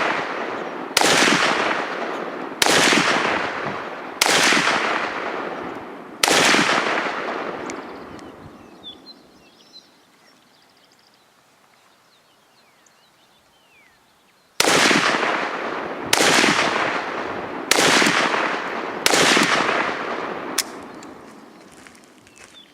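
AK-47 rifle fired in slow, aimed single shots, each about a second and a half apart and trailing off in a long echo: four shots, a pause of several seconds, then five more, the last one fainter.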